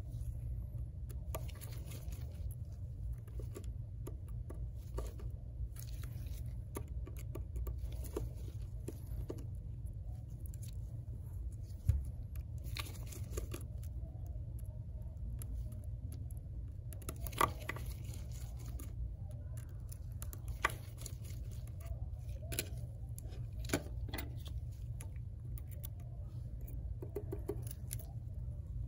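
Scattered small clicks and ticks of a precision screwdriver and tweezers on the tiny screws and metal bracket of an iPhone 8 Plus screen assembly, with a few sharper clicks, over a steady low hum.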